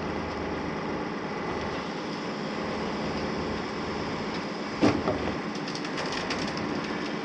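Heavy-haul truck's diesel engine running steadily as the loaded low-loader trailer creeps forward, with a single sharp clunk about five seconds in.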